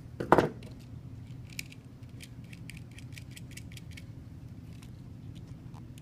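Pliers and stiff copper wires being handled at a metal electrical box: a short knock just after the start, then light, irregular metallic clicks over a low steady hum.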